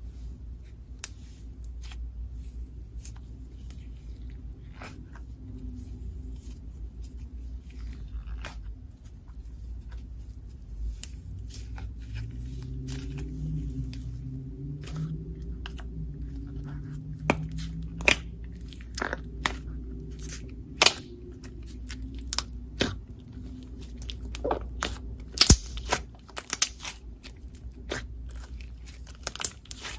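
Slime being kneaded and squished by hand, giving irregular sharp sticky clicks and pops that come more often and louder in the second half, over a steady low hum.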